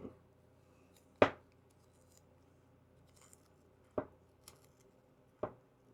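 Heavy-duty scissors cutting through a strip of material: a few separate sharp snips, the loudest about a second in and the others near the end.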